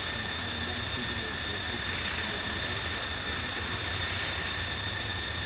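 Steady high-pitched insect drone: one unbroken held tone with a higher overtone above it, over a low steady rumble.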